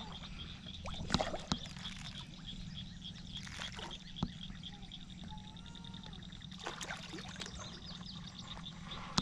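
Fish splashing at the pond surface as they take thrown feed, with several separate splashes. Frogs call underneath, over a steady low hum.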